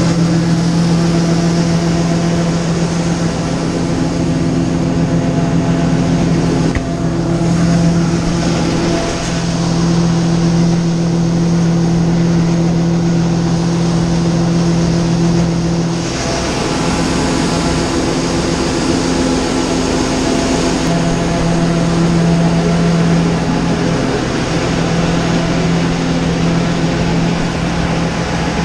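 John Deere 9570 STS combine running with a steady machine hum while its unloading auger empties corn from the grain tank. The hum shifts a little in pitch and level a few times.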